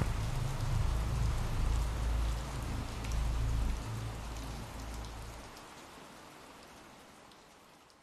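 Ambient rain sound effect: a steady hiss of rain with a low rumble underneath that cuts off about five and a half seconds in, the whole sound fading out gradually toward the end.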